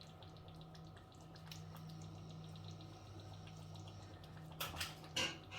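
Stew bubbling and popping gently in a pot, small ticks over a faint steady hum, with a couple of louder noises near the end.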